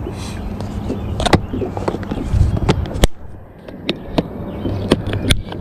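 Clear plastic compartment tackle box being handled and shut: a handful of sharp plastic clicks and knocks as the lid closes and latches, the loudest about three seconds in, over a low steady rumble.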